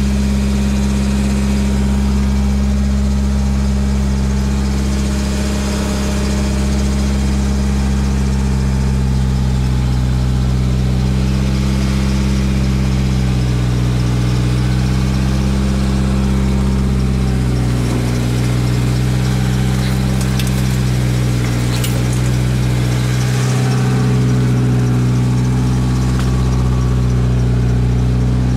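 Mitsubishi Eclipse GSX's turbocharged 2.0-litre four-cylinder engine idling steadily, its idle speed wavering a little now and then.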